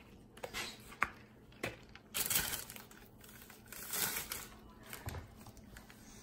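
A fork scraping and crinkling against a paper plate as it cuts through meatballs and lettuce: a few short crinkly bursts, with a sharp click about a second in.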